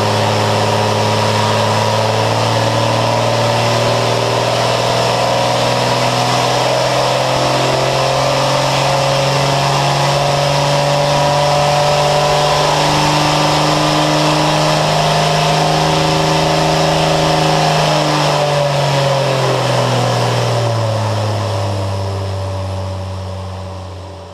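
Lycoming AEIO-540 fuel-injected, air-cooled six-cylinder aircraft engine running under load on a dynamometer. Its speed climbs slowly and holds, then drops back to a lower speed about three-quarters of the way through, and the sound fades out near the end.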